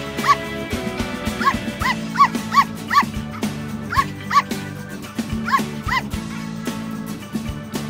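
Wheaten terrier puppy yapping: about ten short, high yips, often in quick pairs, over background music.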